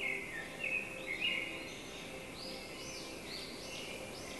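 A songbird singing a fast run of short, high chirps that rise and fall in pitch, with a few louder notes in the first second and a half.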